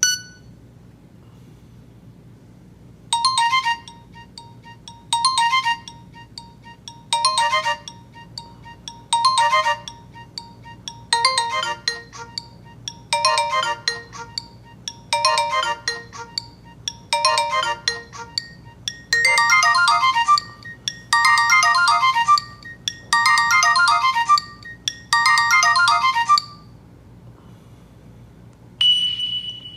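Nokia E90 mobile phone ringtone: a short electronic melody repeating about every two seconds. Its phrases become longer and fuller about two-thirds of the way through, then it stops. A different tone starts just before the end.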